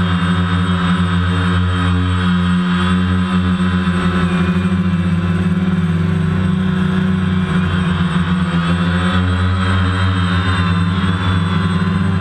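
DJI Phantom 1 quadcopter's electric motors and propellers running in flight, a steady loud hum heard up close from the drone's own camera, its pitch shifting a little as the motors change speed.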